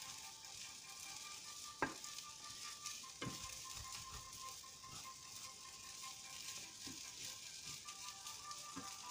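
Rice with chopped carrot, onion and pepper sizzling in oil in a nonstick frying pan while a wooden spatula stirs it, with a couple of sharp taps of the spatula on the pan about two and three seconds in. The rice is being fried in the oil before the water goes in.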